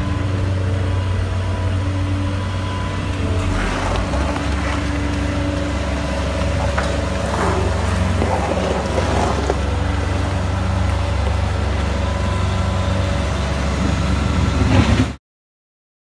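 Radio-controlled Scania 8x8 tipper truck running with a steady low hum while its hydraulic dump body lowers, with a few short rattles in the middle. The sound cuts off suddenly about a second before the end.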